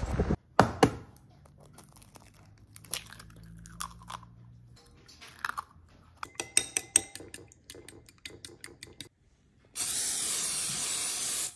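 Kitchen sounds of breakfast prep: a sharp knock about half a second in, then scattered clicks and a quick run of rapid clicking as eggs are whisked with a fork in a ceramic bowl. Near the end comes about two seconds of steady, loud hiss from an aerosol cooking-oil spray being sprayed into a nonstick frying pan.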